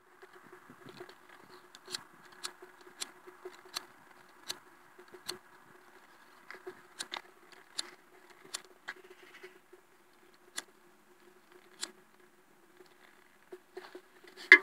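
Sharp, irregular clicks, about one or two a second, over a faint steady hum.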